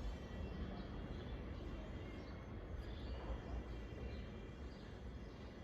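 Quiet outdoor ambience: a steady low rumble with a few faint, short bird chirps above it.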